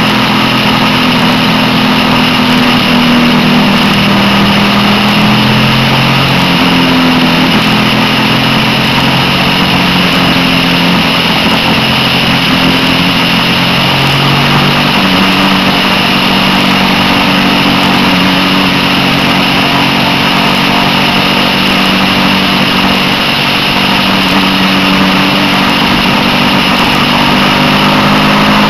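Suzuki SV650's 645 cc V-twin engine running at road speed under a steady rush of wind and road noise on the bike-mounted microphone. The engine note shifts in pitch a few times, around 6 s and 14 s in, as the throttle and gears change.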